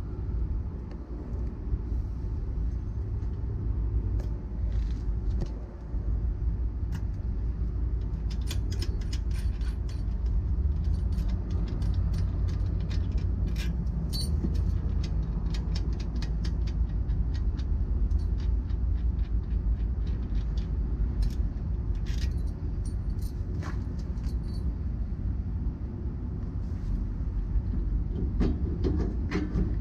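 Light metal clicks and clinks from a new air brake chamber and its bolts being handled and fitted at a truck's wheel end, over a steady low rumble.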